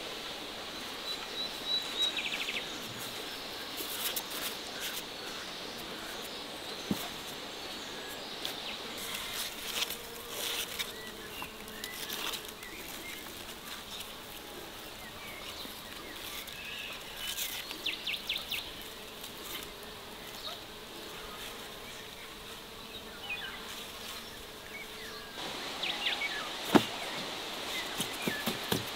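A flying insect buzzing, a steady drone through the middle that fades a few seconds before the end, among scattered light clicks and knocks.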